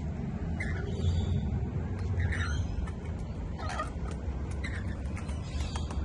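Rainbow lorikeets bathing in a shallow tub of water: short squawking calls about a second apart, with light splashing and wing flutters, over a steady low rumble.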